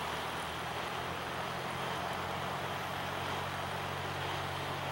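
Cessna 152's four-cylinder Lycoming O-235 engine and propeller running steadily at low taxi power, a constant low drone with a broad hiss over it.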